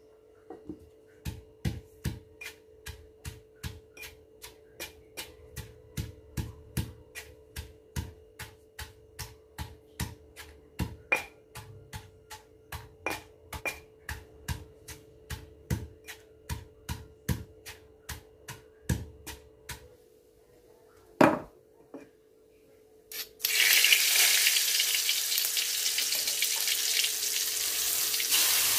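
A stone pestle pounding garlic, shallots, chilli and candlenut in a stone mortar, a steady knock about two or three times a second, then a single louder knock. Near the end, spice paste goes into hot oil in an aluminium wok and sizzles loudly.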